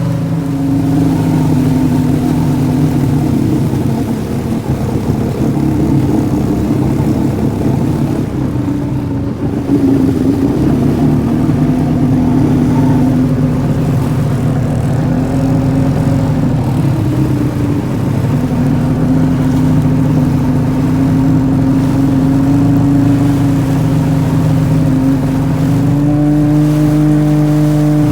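1998 Kawasaki STX-1100 jet ski's three-cylinder two-stroke engine running, its pitch wavering up and down with the throttle and stepping up near the end.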